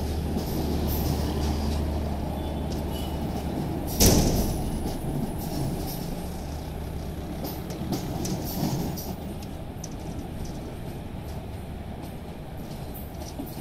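Passenger train coaches rolling past and away over the switches: a steady rumble of steel wheels on rails with scattered clicks and clacks, and one loud sharp bang about four seconds in. The rumble slowly fades as the last coach moves off.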